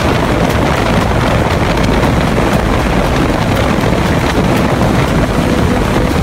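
Airboat's engine and large air propeller running loudly and steadily as the boat skims across marsh water, with wind buffeting the microphone.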